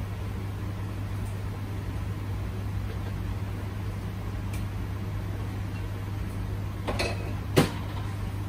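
Steady low hum, with two sharp knocks near the end, the second louder.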